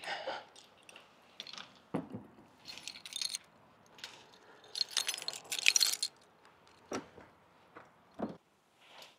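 Small hard objects jangling and clattering as they are handled, loudest in a jingly burst about five to six seconds in, with a few dull knocks in between.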